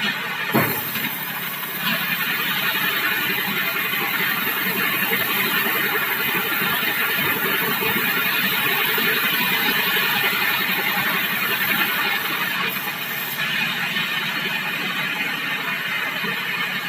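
Sawmill saw cutting through a bengkirai (Shorea laevis) log: a loud, steady, harsh noise that grows a little louder about two seconds in, after a single knock near the start.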